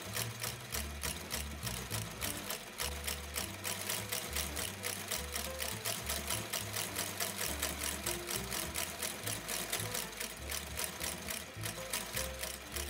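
RAPID outsole stitching machine running, its needle and awl clacking in a fast, even rhythm of about five stitches a second as it lockstitches a rubber Vibram sole to a boot's welt.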